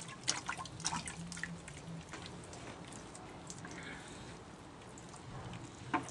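Liquid dripping and splashing in scattered drops, thickest in the first couple of seconds and again near the end, as the car body behind the wheel is washed down before fitting an adhesive splash guard.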